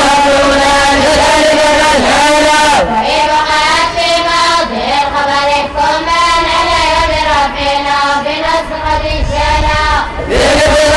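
A group of boys and young men chanting in unison, a melodic recitation of memorized classical texts (mutun) in long held notes that dip in pitch between phrases.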